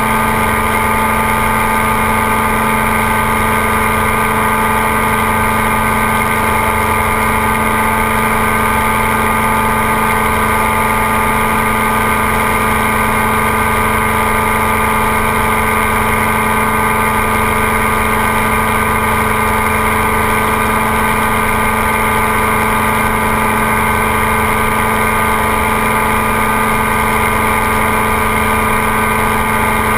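Ultralight trike's engine running at a steady cruise in flight, an unchanging drone, with wind buffeting the wing-mounted microphone.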